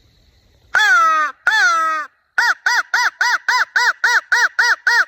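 Hand-held crow call blown by mouth as a turkey locator call: two long, drawn-out caws falling in pitch, then a fast run of about ten short caws, about four a second.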